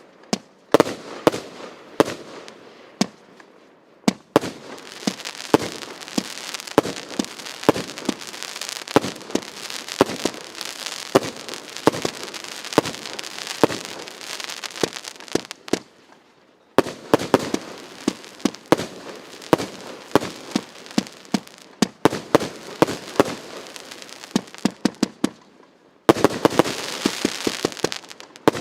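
A firework battery (a multi-shot cake) firing: a rapid run of sharp shots and bursts over a steady hissing crackle. It pauses briefly about two-thirds of the way through, and again near the end before a faster volley.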